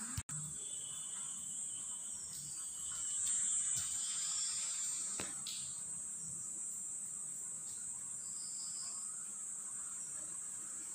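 Steady high-pitched trilling of crickets or similar insects in the background, unbroken except for a momentary cut-out in the audio just after the start; a faint click about five seconds in.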